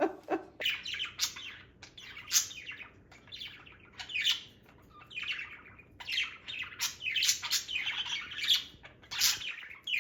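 Small pet parakeets chirping and chattering: a string of quick, high chirps, many sliding down in pitch, with a quieter lull in the middle.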